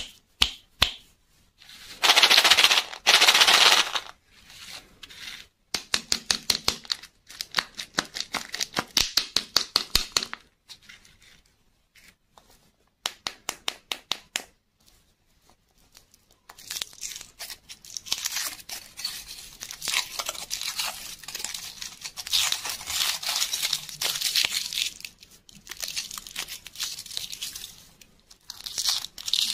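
Foil wrapper of a Kinder Surprise chocolate egg crinkling and tearing as it is peeled off by hand. It comes in bursts, with runs of quick crackling clicks between them and a long stretch of steady crinkling near the end.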